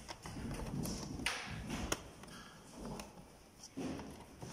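Light clicks, taps and rustling of fingers handling the parts and ribbon cables inside an opened LCD projector, with sharp clicks about a second in, just before two seconds and near the end.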